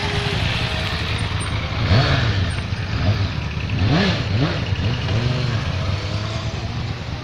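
Motorcycle engines running in slow traffic, their pitch rising and falling with repeated revs; the loudest revs come about two seconds in and again about four seconds in.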